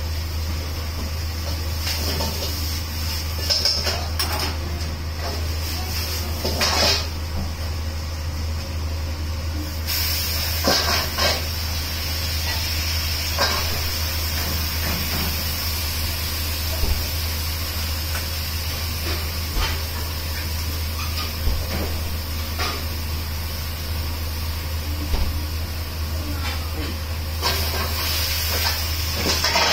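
Gas wok burner and kitchen ventilation running with a steady low hum and a high hiss; the hiss grows louder about a third of the way in. A metal ladle clanks against the wok and steel counter now and then, in short sharp knocks.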